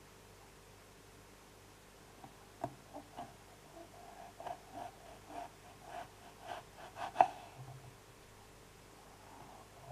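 Kitchen knife cutting through a crisp green apple: a run of short crunching cuts, about two a second, starting about two seconds in, with the sharpest one near the end.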